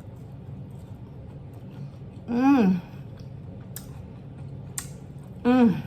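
A woman's appreciative "mmm" hums while eating fried sweet plantain, given twice: once a couple of seconds in with a pitch that rises then falls, and again near the end falling in pitch. Two short, sharp mouth clicks come between them.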